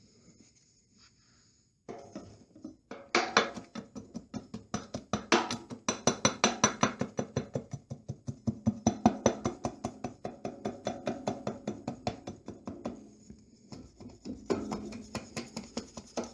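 Music with a fast, steady beat, starting about two seconds in.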